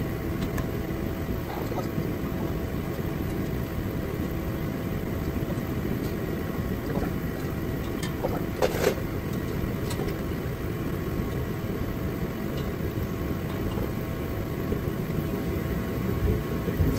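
Steady hum of a shop heater, with a couple of short metal clinks from hand tools on the bumper bolts about eight and ten seconds in.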